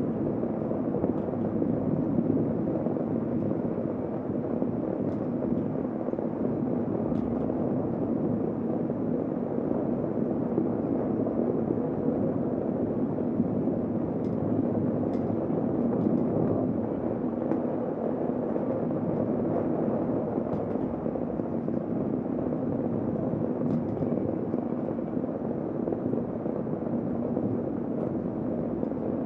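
Heavy rain falling, a steady, even rushing noise, with a few faint sharp ticks of drops now and then.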